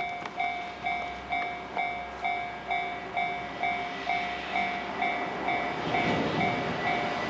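Level-crossing warning bell ringing steadily at about two dings a second, while a freight train hauled by a JR Freight EF210 electric locomotive approaches. Its rushing noise builds from about four seconds in and grows louder near the end.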